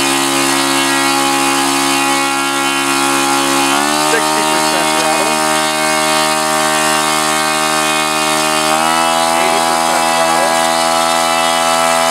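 O.S. FS-95V four-stroke glow engine turning a Master Airscrew 14x6 propeller, running steadily at part throttle and stepping up in speed twice, about four seconds in and again about nine seconds in, as the computer-controlled throttle moves up through its test settings.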